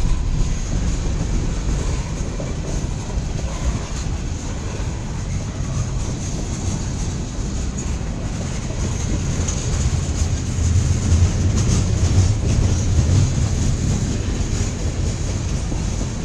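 Freight cars of a long mixed-freight train rolling past on the track, a continuous low rumble with faint wheel clicks, swelling a little about ten seconds in.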